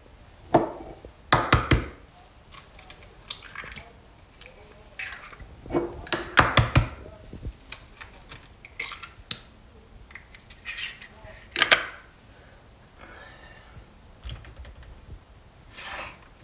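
Kitchen dishes and utensils being handled on a worktop: a series of separate knocks and clinks, the loudest clusters about a second and a half in, around six seconds in, and near twelve seconds in.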